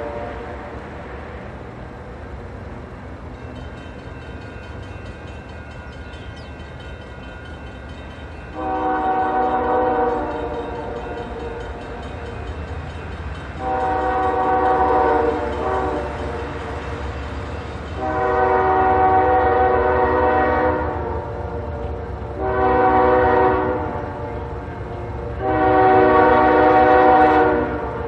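Norfolk Southern locomotive's multi-note air horn sounding five blasts as the train approaches, the last four in the long, long, short, long pattern for a grade crossing, over a steady low rumble from the train.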